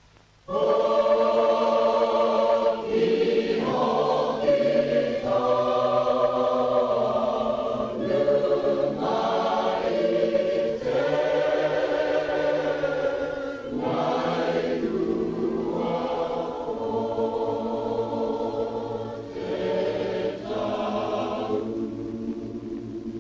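Background music of a choir singing held chords. It comes in about half a second in and fades near the end.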